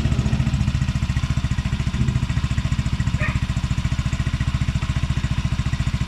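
Yamaha Aerox v1 scooter's single-cylinder engine idling steadily through an RS8 aftermarket 'silent killer' exhaust with a stainless tube, a fast, even low pulse.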